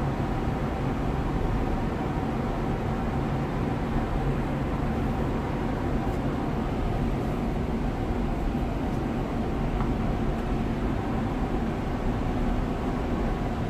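Steady drone of a cargo ship under way, its engine and machinery giving a few held low tones, under a constant rushing of wind and wake water.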